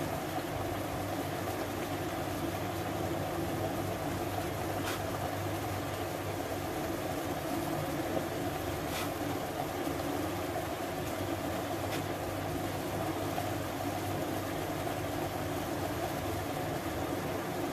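Onion-tomato masala paste bubbling and frying on high flame in an open pressure cooker, over the steady rumble of the gas burner. A few faint clicks come at intervals.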